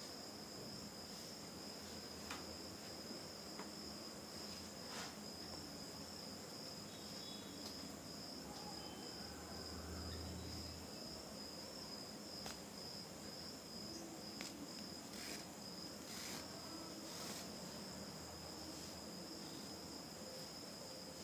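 Quiet room tone under a steady, faint high-pitched trill, with a few faint clicks and rustles from hands working yarn with a crochet hook.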